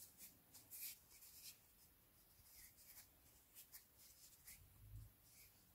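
Near silence, with faint soft rubbing and light ticks of hands pressing and rounding a potato-stuffed dough ball, and a soft low bump about five seconds in.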